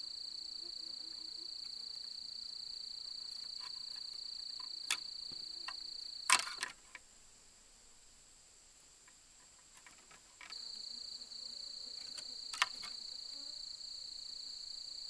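An insect's steady high-pitched drone, which breaks off about six seconds in and starts again about four seconds later. Over it come a few sharp clicks of bamboo strips being handled and woven into a round frame, the loudest a crack just as the drone stops.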